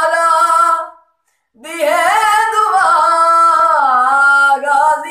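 A young man's high voice singing a Shia devotional song alone, with no instruments: a phrase ends about a second in, and after a short breath a long, ornamented line is held for about three seconds.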